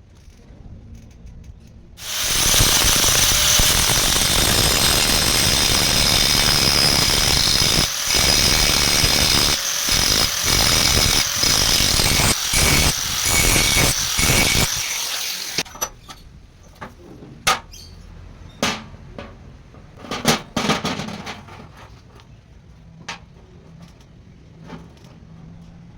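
A power tool starts about two seconds in and runs loudly with a high whine for about thirteen seconds, briefly dipping a few times, then stops; scattered clicks and knocks follow.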